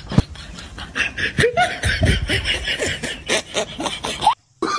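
People snickering and laughing in quick breathy bursts, with a sharp click just after the start. The sound drops out briefly near the end.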